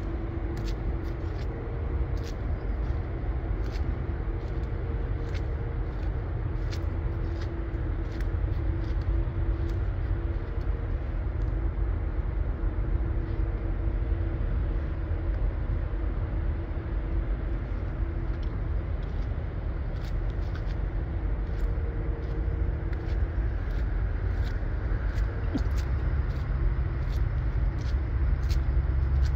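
Car driving on a snow-covered road: a steady low rumble of engine and tyres with a faint steady hum and scattered light ticks, the rumble growing louder near the end.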